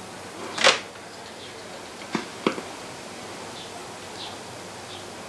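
1937 Sears Silvertone tube radio hissing on the shortwave band with no station coming in, as its oscillator warms up. There is a short loud whoosh under a second in, two sharp clicks a little past two seconds in, and faint short chirps near the end.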